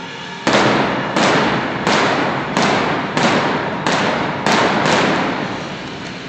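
Indoor arena pyrotechnics firing: eight sharp blasts in quick succession, about one every two-thirds of a second, the last two closer together. Each blast trails off in the arena's echo.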